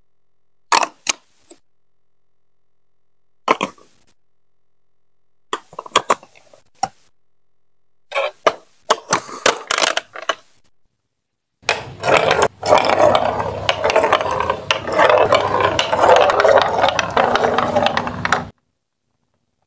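Plastic Duplo blocks and track pieces clicking and snapping into place, in short separate clicks. About twelve seconds in, a marble starts rolling and rattling along the plastic marble-run track for about seven seconds, then stops abruptly.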